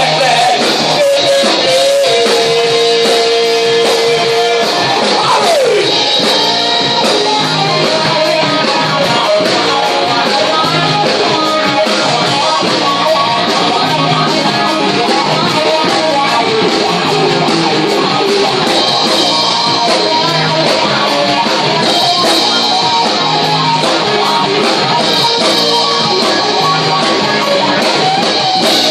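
A live rock band playing loud: electric guitar over a drum kit with a steady beat, a long held note and a falling slide in the first several seconds.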